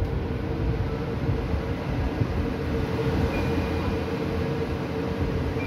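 Faber Bolt 90 cm kitchen chimney (range hood) blower running steadily after being switched on: rushing air with a steady hum.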